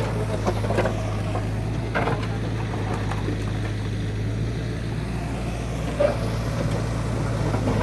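Backhoe loader's diesel engine running steadily at low revs, with a few faint knocks.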